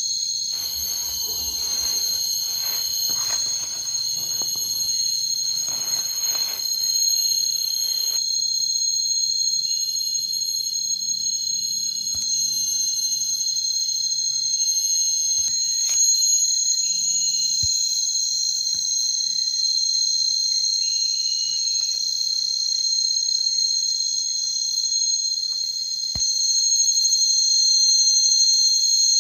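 A steady, high-pitched chorus of trilling insects. Rustling runs under it for the first several seconds, and a few single clicks come later.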